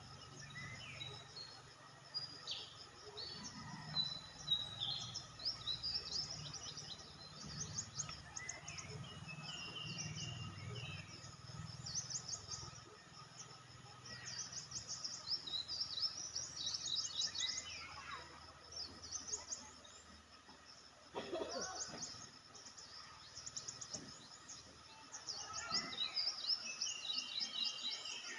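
Several birds calling and chirping in tropical forest, many short, quick-fire trills and chirps coming and going throughout, over a steady high insect drone.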